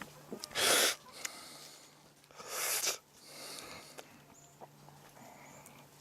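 Sharp, noisy breaths or snorts: a loud one about half a second in, a second one about two seconds later, and a fainter one soon after.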